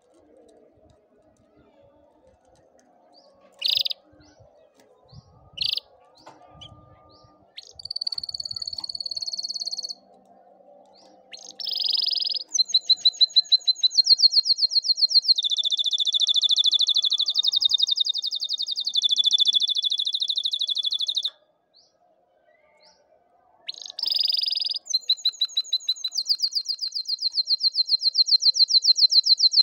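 Domestic canary singing: a few short chirps, then long runs of fast, rapidly repeated trill notes, broken by a pause of a couple of seconds about two-thirds of the way through.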